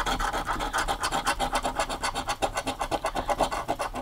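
A coin scratching the coating off a scratch-off lottery ticket in quick, even, rasping strokes, many a second.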